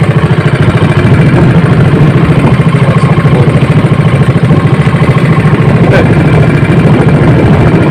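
Engine of a motorized outrigger fishing boat running steadily, a loud, even, fast-pulsing drone.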